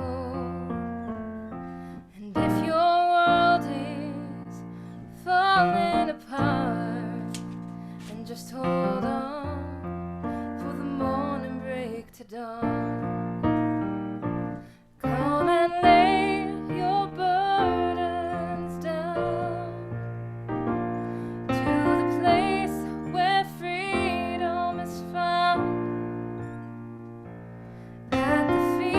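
Offertory music for a church service: piano with sustained chords under a melody that wavers in vibrato, in phrases with short pauses between them.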